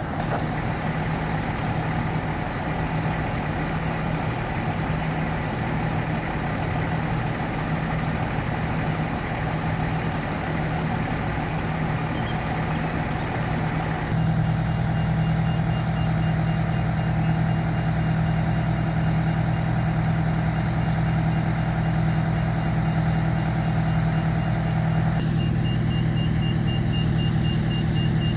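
Parked fire engines' diesel engines idling, a steady low rumble. From about halfway through, a high electronic beep repeats rapidly in the background.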